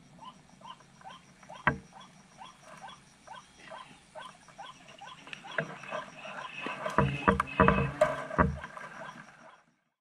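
White-breasted waterhen calling, a short croaking call repeated about twice a second that grows louder and busier from about halfway through. A single sharp crack about 1.7 s in, and a few low thumps later on.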